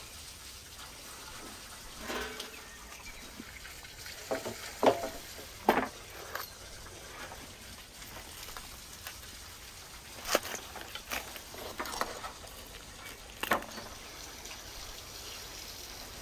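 Sounds of food being handled and eaten: several short, sharp crunches and crackles over a steady faint hiss.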